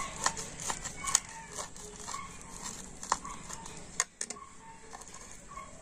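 A knife cuts through a crisp deep-fried egg-and-cabbage pakora onto a plastic plate, making a few sharp clicks and taps. Hens cluck briefly in the background.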